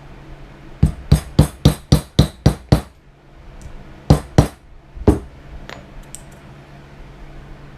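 Hammer strikes in quick succession: about eight sharp blows at roughly four a second, then a pause and three more blows.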